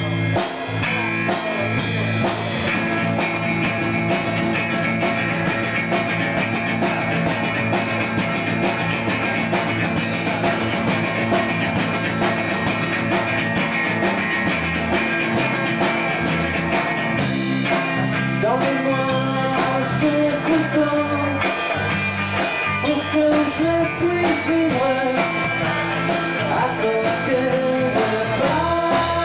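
Live rock band playing: electric guitar, bass guitar and drum kit, with singing coming in a little past the halfway point.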